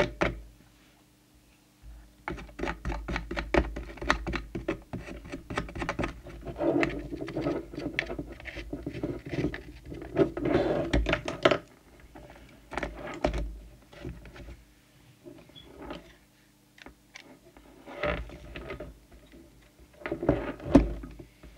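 Scratching, rubbing and clicking handling noises from work on an opened CB radio, dense through the first half and again near the end, over a faint steady low hum.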